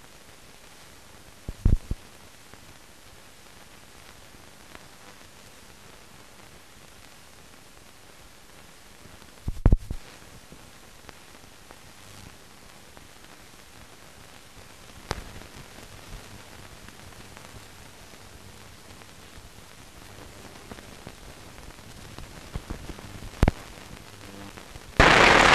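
Steady faint hiss of a blank film soundtrack, broken by four sharp pops spread through, and ending in a loud burst of noise near the end.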